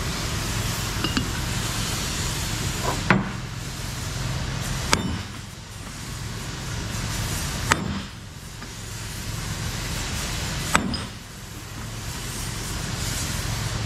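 Short-handled sledgehammer striking a steel driver plate to seat an ice-cold bearing race into the bore of a D10R final-drive gear. There are four spaced blows, two to three seconds apart, over steady shop noise.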